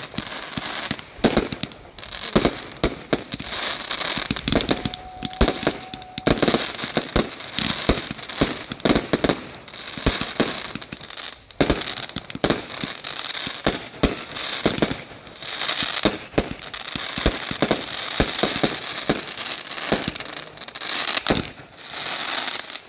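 A consumer firework cake firing shot after shot: a rapid, uneven string of launch pops and crackling star bursts that runs without a break. A brief steady tone sounds about five seconds in.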